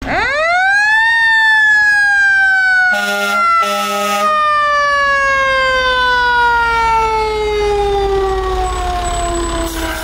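Fire engine siren winding up to a high wail within the first second, then slowly winding down in pitch for the rest of the time, the slow coast-down of a mechanical siren. Two short horn blasts sound over it about three and four seconds in.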